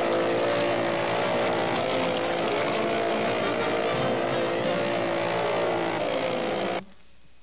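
Cartoon sound effect of a speedboat motor running at full speed with a rush of water, cutting off abruptly near the end.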